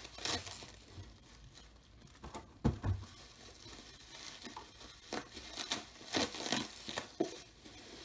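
Packaging being opened by hand: short bursts of crinkling and tearing with a few soft knocks, the loudest knock a little under three seconds in.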